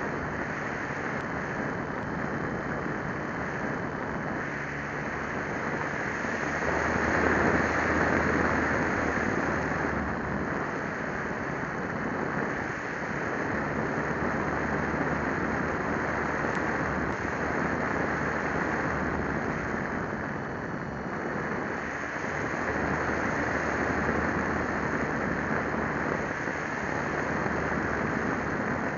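Onboard recording from a small RC plane in flight: a steady rush of wind over the camera microphone with the motor and propeller droning underneath. It swells and fades a few times as the plane manoeuvres.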